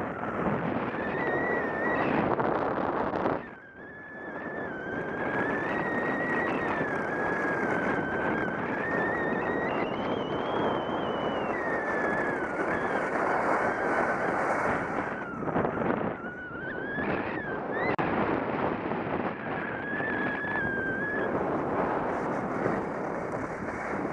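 Wind rushing over a body-worn camera's microphone while skiing downhill, with a thin whistle that wavers up and down in pitch. The rush drops away briefly about three and a half seconds in.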